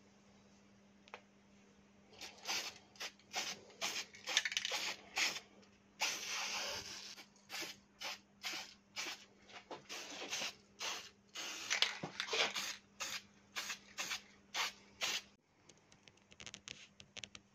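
Aerosol spray paint can hissing in a series of short sprays, roughly one to two a second, with one longer spray of about a second some six seconds in. The spraying stops a couple of seconds before the end.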